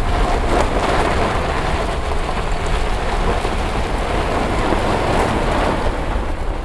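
Wind buffeting a microphone held out of the window of a moving car, with a steady low rumble, over the crunch and hiss of tyres rolling on a gravel road.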